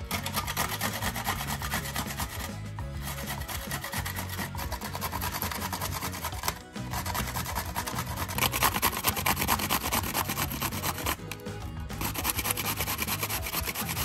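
Pickled gherkins being grated on a stainless-steel box grater: a fast, continuous rasping of quick strokes against the metal, broken by three brief pauses as the gherkin is repositioned.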